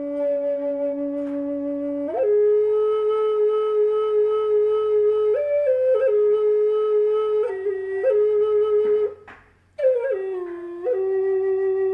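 Background music: a solo flute playing slow, long held notes that step between a few pitches, with a short pause about nine seconds in.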